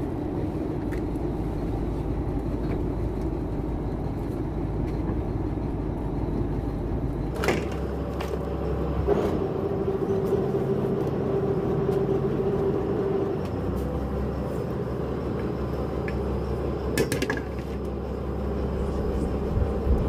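Fishing trawler's engine running steadily, its low drone shifting a couple of times, with a steady hum for a few seconds in the middle and a few sharp knocks.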